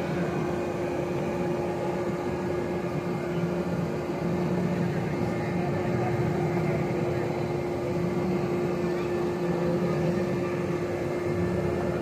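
Steady mechanical drone with a constant hum at one pitch, from a running machine such as a blower or motor.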